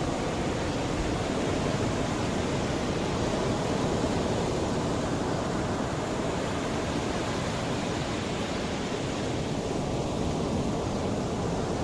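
Mediterranean sea waves washing ashore: a steady rush of surf with only slight swells and lulls.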